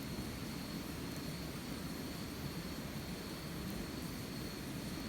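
Campfire burning: a steady low rush from the flames with a faint crackle now and then. A thin, steady high-pitched tone runs underneath.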